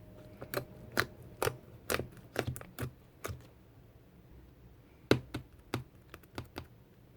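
A quick run of sharp clicks or taps, about eight in the first three and a half seconds. After a short pause comes a second run of about six, the loudest near the start of that run.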